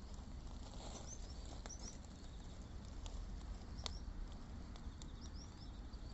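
Wood fire crackling, with a few scattered sharp pops, one stronger than the rest about four seconds in. A few short, high bird chirps come around a second in and again near five seconds, over a steady low rumble.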